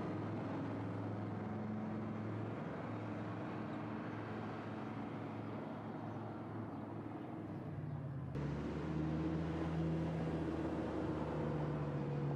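Audi R8 V10 plus's V10 engine running at low revs as the car pulls away over cobblestones, the sound slowly fading as it recedes. About eight seconds in, it jumps suddenly louder and holds a steady low-rev note.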